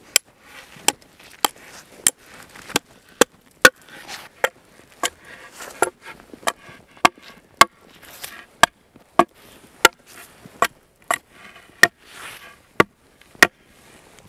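Wood being chopped with an axe: about twenty sharp blows in a steady rhythm, roughly one every half-second to second, with small rustles and splintering between strikes.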